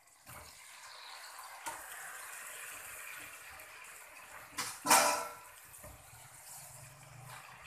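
Raw chicken pieces sizzling in a pan of hot butter and oil with onion and garlic, a steady hiss. About five seconds in, a loud, short metallic clank.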